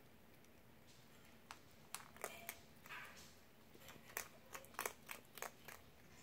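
Fennec fox crunching dry kibble and mealworms from a bowl: a run of sharp, irregular crunches that starts about a second and a half in and stops shortly before the end.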